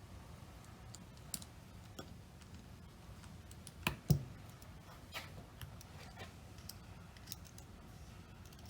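Small scattered clicks and taps of hand repair tools against an opened iPhone's small screws and parts, with two louder taps close together about four seconds in.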